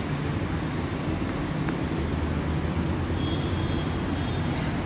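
Oil sizzling with a steady hiss around yellow-pea tikkis shallow frying in a nonstick pan, over a constant low rumble.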